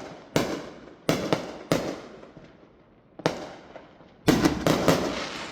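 Fireworks going off: sharp bangs, each fading in an echoing tail. There are several separate bangs in the first two seconds, one more after a short lull, then a quick volley of bangs near the end.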